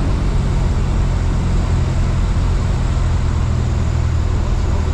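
Single-engine light aircraft's piston engine and propeller running with a steady drone, heard inside the cabin along with rushing air noise.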